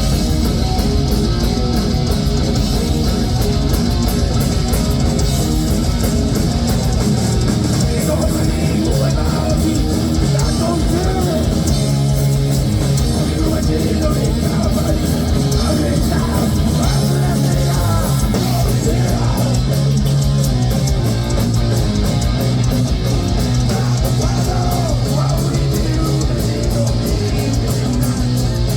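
Live heavy metal band playing loudly: distorted electric guitars over a heavy bass line and fast drums with dense cymbals.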